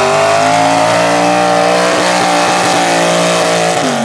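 Tractor-tire mud truck's engine running at high revs as the truck churns through the mud pit, its pitch held nearly level, then dipping sharply near the end.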